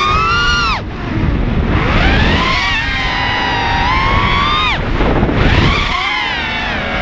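Racing mini quadcopter's brushless motors whining, the pitch rising and falling with the throttle and dropping away sharply twice, about a second in and near five seconds in. Wind rushes over the onboard camera's microphone underneath.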